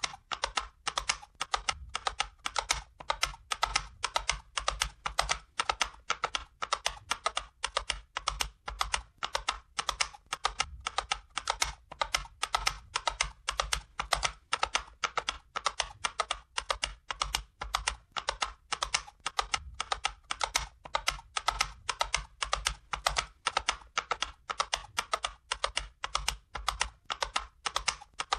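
Galloping horse hoofbeats sound effect: sharp clip-clop strikes in quick clusters, repeating steadily at about three strides every two seconds.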